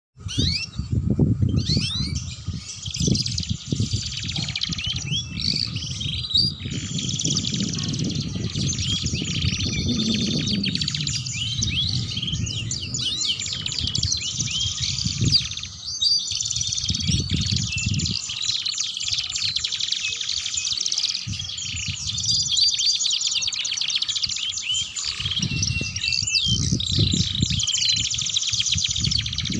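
Domestic canaries singing without pause, a dense run of fast rolling trills and chattering twitters. Bursts of low rumbling sit underneath at times.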